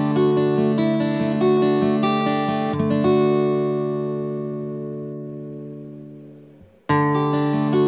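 Background music on a plucked acoustic guitar: a phrase of ringing notes that slowly dies away to almost nothing about six and a half seconds in, then a new strummed phrase starts near the end.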